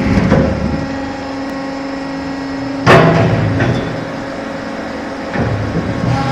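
GROWI X Power hydraulic log splitter running between splits, a steady mechanical hum with a held tone. A loud knock about three seconds in, and a short stretch of clattering near the end as the machine cycles.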